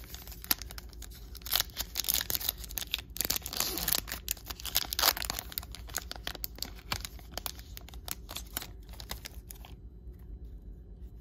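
Wrapper of a 2022 Bowman Sapphire baseball card pack crinkling and tearing as it is ripped open by hand, busiest a few seconds in, then settling to a softer rustle of the cards being handled near the end.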